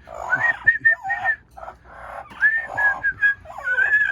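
Amazon parrot whistling short, steady notes, some bending up or down in pitch, mixed with rough chattering calls.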